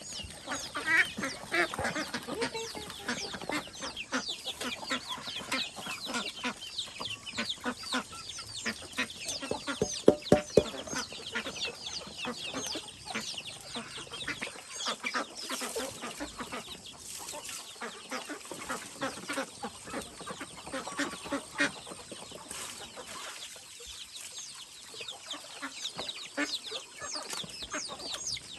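Chickens clucking, with many short, high calls overlapping throughout. A few sharp knocks about ten seconds in are the loudest sounds.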